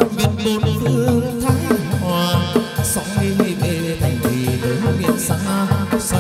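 Vietnamese chầu văn ritual music: a band plays a melody over a steady, repeating drum beat.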